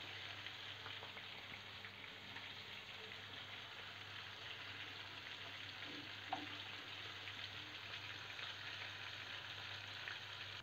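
Prawns sizzling and crackling steadily in hot oil in a kadai, near the end of frying, with one light knock about six seconds in.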